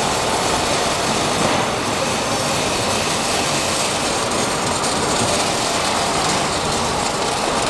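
Robotic MIG welding arc burning continuously, a steady, even hiss with a fine crackle.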